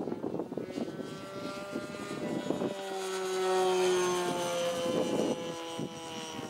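Irvine 53 two-stroke nitro glow engine of a 3D70 Sbach 342 RC aerobatic plane passing overhead: its buzzing note swells to loudest a little past halfway and falls steadily in pitch as the plane goes by.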